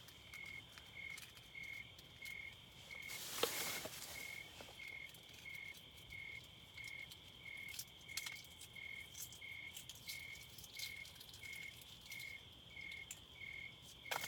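Crickets chirping in an even rhythm, about one and a half chirps a second, over a steady higher-pitched insect trill. A brief rustle about three and a half seconds in is the loudest sound.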